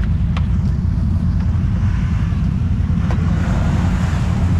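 ATV engine running steadily, with water splashing as a quad ploughs through a muddy water hole.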